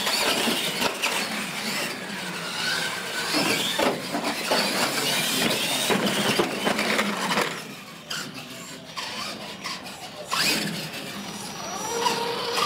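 Two electric R/C monster trucks of the Tamiya Clod Buster kind racing: motors and gearboxes whining high, rising and falling in pitch, with knocks as they hit the ramps and jumps. The noise eases about seven and a half seconds in, then a truck runs close by with a rising whine near the end.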